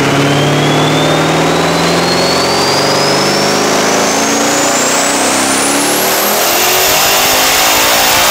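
Twin-turbocharged Ford 4.6-litre three-valve V8 at full throttle on a chassis dyno, its pitch climbing steadily through the pull toward about 7,200 rpm, with a high whine rising alongside it. This is a full-boost power run at about 31 psi.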